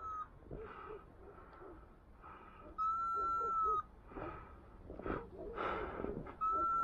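A hunting dog's electronic beeper collar sounds a steady, even beep about a second long, once every three to four seconds: the locating signal for a dog working through thick cover. Between the beeps there is rustling and snapping of brush, with breathing.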